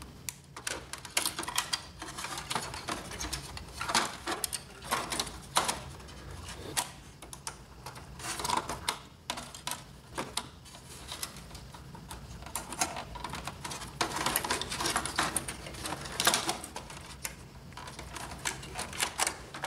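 Irregular clicks, taps and scrapes of plastic and circuit board as wire connectors and a flat ribbon cable are pushed into the sockets of an inkjet printer's main board.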